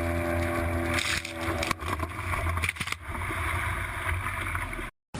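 Boat motor running steadily amid water noise, with a few short knocks in the middle; the sound cuts off suddenly near the end.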